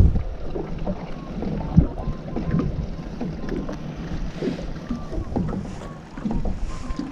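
Wind and water noise around a small fishing boat, with a few scattered knocks from the boat, the strongest about two seconds in.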